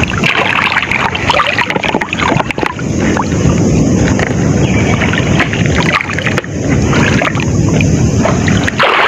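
Muddy floodwater sloshing and splashing around people wading deep through a fast current, with sharp splashes in the first few seconds and a heavier low rush of water from about three seconds in.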